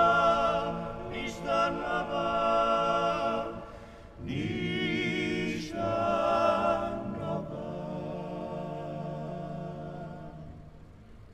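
Dalmatian klapa, an a cappella vocal group, singing in close harmony: long held chords without clear words, with a new chord coming in about four seconds in and the sound slowly fading away near the end.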